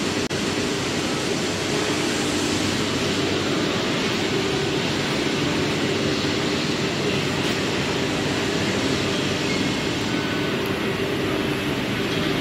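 Steady hum and whir from a parked TGV Duplex double-deck high-speed train, its onboard equipment running while it stands at the platform, with a few level tones under the noise.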